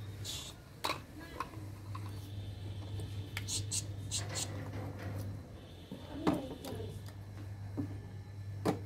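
Small plastic toy kitchen pieces clicking and knocking together as they are handled, with a few brief rustles a few seconds in. A low hum comes and goes behind.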